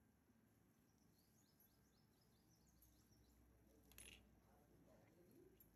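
Near silence: faint background noise with a quick run of faint high bird chirps about a second in and a single soft click about four seconds in.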